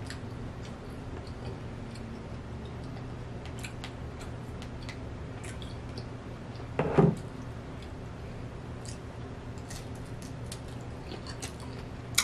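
Faint wet mouth sounds of someone eating steamed shrimp: small scattered clicks of chewing and smacking over a steady low hum, with a short sound of her voice about seven seconds in.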